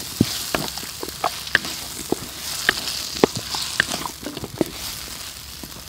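A spatula scraping and knocking against a large steel wok while shallots, garlic and chilli paste stir-fry in oil. Sharp scrapes and clicks come irregularly, about two a second, over a steady hiss of frying.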